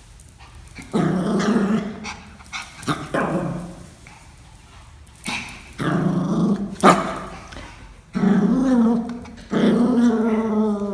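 Pomeranian growling in several bouts of a second or two each, with a few barks mixed in.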